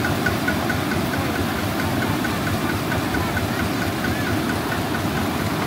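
A small engine running steadily at idle, with a light, regular high tick about five times a second.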